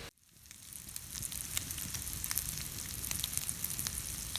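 Ground country sausage sizzling in a cast-iron skillet over a campfire, an even hiss with scattered sharp pops and crackles. The sound cuts out briefly at the start and fades back in, and drops out again briefly near the end.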